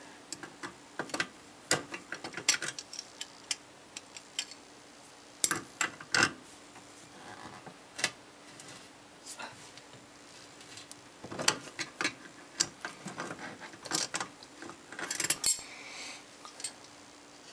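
Channel-lock pliers clicking and clinking on the large metal nut of a chrome sink drain pipe as it is worked loose: scattered, irregular metallic ticks that come in several clusters. The pipe is turning along with the nut instead of the nut coming free.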